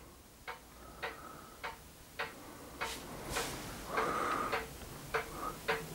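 Old solenoid-powered beam engine running slowly, its mechanism giving a light, even tick about twice a second, with a soft buzzing hiss for about a second just past halfway.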